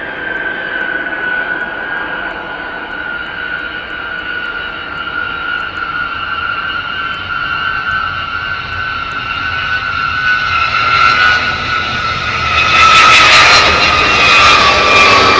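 The eight TF33 turbofan engines of a B-52H Stratofortress as it lands and rolls out: a steady jet whine slowly falling in pitch. The roar grows louder and fuller about two-thirds of the way in.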